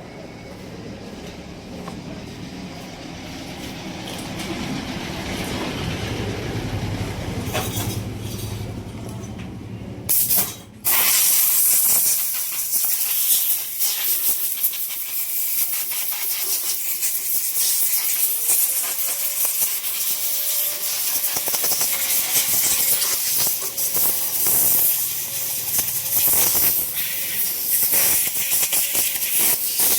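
A rumbling noise that grows louder, then about eleven seconds in a loud, steady hiss starts suddenly and continues, with a faint steady tone beneath it.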